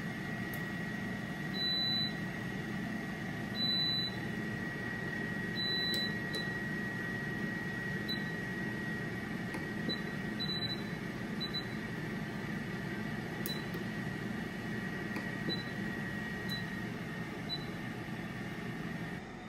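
Pampered Chef Deluxe Air Fryer running with a steady fan whir and a faint high whine, while its control panel beeps: a few longer beeps in the first half, then short single beeps as the dial is turned to set it to air fry for 18 minutes.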